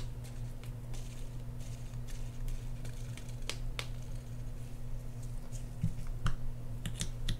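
Small scattered clicks and light taps from handling the fishing reel's crank handle and small hand tools, over a steady low hum.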